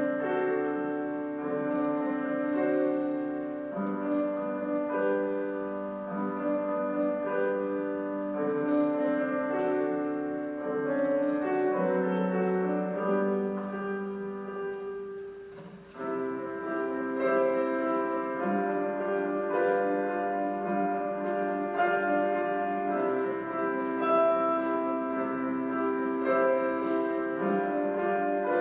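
Solo piano played by a young child: a slow, simple piece of held notes and chords. About halfway through the playing briefly fades almost to nothing, then comes back a little louder.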